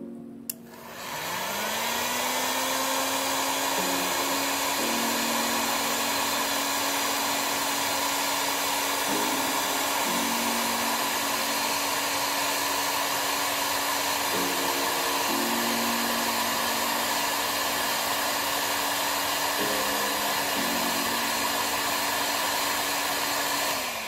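Electric heat gun switched on with a click, its fan spinning up with a rising whine, then blowing hot air with a steady hiss to shrink heat-shrink tubing over a soldered ring terminal. It cuts off at the end.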